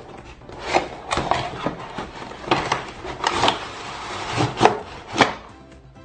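Pieces of a toy cutting-fruit playset being handled: a series of scrapes and knocks, about half a dozen sharp ones.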